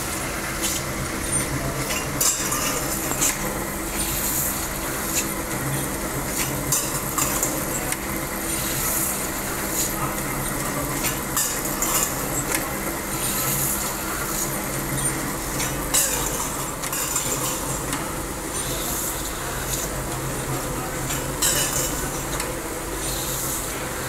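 Stainless steel utensil workshop machinery: a hydraulic press and other machines running with a steady low hum, over frequent metallic clinks and clatter of steel bowls and an on-and-off hiss.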